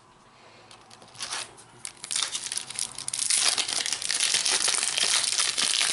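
Plastic wrapper of a Mega Match Attax trading card pack crinkling as it is opened by hand. It starts with a few faint crackles and builds from about two seconds in to continuous loud crinkling.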